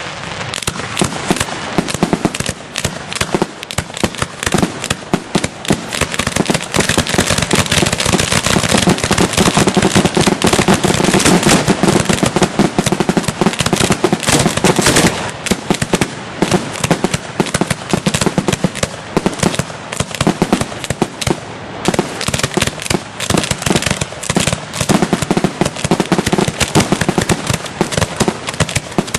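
Display fireworks going off in a dense, continuous barrage of rapid sharp reports, loudest from about nine to fifteen seconds in.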